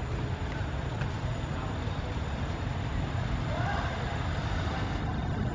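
Outdoor ambience: a steady low rumble with faint voices, and a short rising call about three and a half seconds in.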